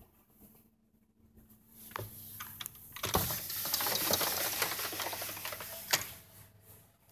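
Packed snow crunching and crackling: a dense run of small crisp crackles for about three seconds in the middle, with a few scattered clicks before it and one sharp click near the end.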